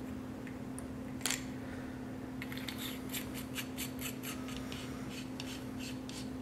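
A light metal clink about a second in, then a run of small scraping clicks as a threaded aluminium flashlight cap is screwed back on after loading CR123 batteries.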